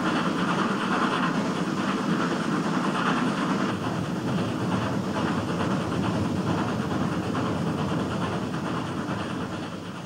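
Nilgiri mountain train running along the track: a steady clatter of wheels and carriages that eases slightly near the end.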